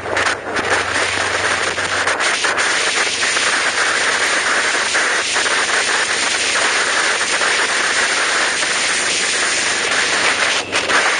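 Steady rushing hiss of wind and road noise from a vehicle driving at speed, with a low hum in the first couple of seconds that then fades.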